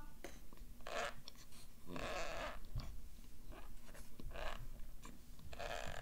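Cornstarch powder being chewed close to the microphone, giving squeaky crunches. Each bite comes as a separate crunch: a few strong ones and some smaller ones in between.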